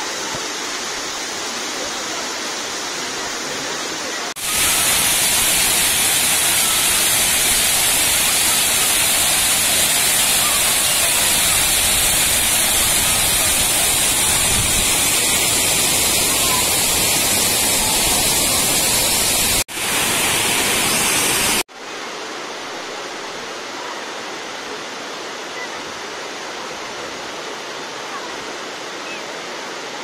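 Waterfall's falling and rushing water: a steady rushing noise with no pitch. It turns abruptly louder about four seconds in, then drops back to a lower level after about twenty-two seconds.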